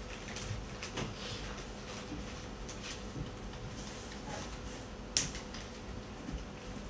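Small clicks and taps of metal multimeter probe tips touching the pins of a wiring connector, with one sharper click about five seconds in, over a steady faint hum.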